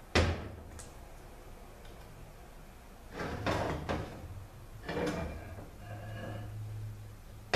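A sharp metal clunk right at the start, then a few lighter clatters and scrapes as an Aisin AW450-43LE transmission's valve body is lifted off and handled on the bench.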